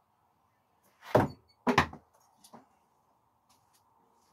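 A screwdriver thrown no-spin strikes a wooden target board with a loud knock, and a second knock follows about half a second later, then a few faint ticks.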